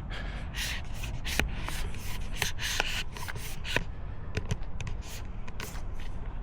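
Walking with a handheld camera: irregular crunches and rubbing, about two or three a second, over a low rumble. The crunches thin out in the last couple of seconds.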